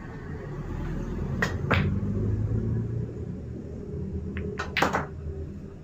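Pool balls clacking: two sharp clacks about a third of a second apart, then a quick run of clacks near the end, over a low steady background rumble.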